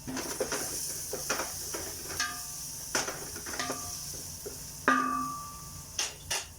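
Metal cookware clanking: a run of knocks and taps, three of which ring out with a fading metallic tone, the loudest about five seconds in. A steady sizzle of food frying in oil runs underneath.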